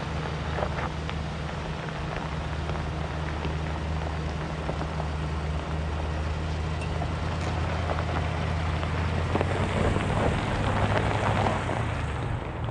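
2022 Chevrolet Silverado ZR2's 6.2-litre V8 running at a low, steady crawl as the truck rolls past over loose gravel, its tyres crunching and popping small stones. It gets louder as it passes, about ten seconds in, then eases off.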